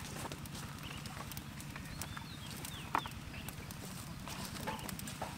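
Outdoor ambience: scattered light clicks and knocks over a steady low hum, with a bird giving a few short chirps about two to three seconds in.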